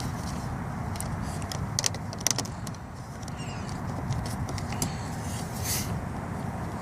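Scattered light clicks and taps of a replacement exterior car door handle being pushed and seated into the door, over a steady low rumble.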